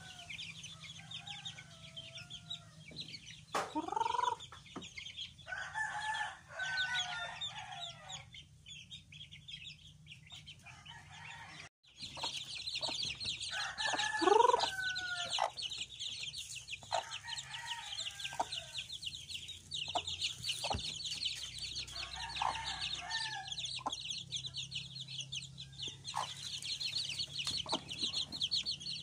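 A backyard flock of native chickens: many chicks peeping rapidly and without pause, with hens clucking over them. Two louder, drawn-out rising calls stand out, one about four seconds in and one about fourteen seconds in. After a break near the middle the peeping gets louder.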